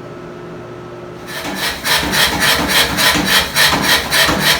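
Rapid back-and-forth rasping strokes of a hand tool worked on a steel Damascus bar, about four strokes a second, starting about a second and a half in over a steady low hum.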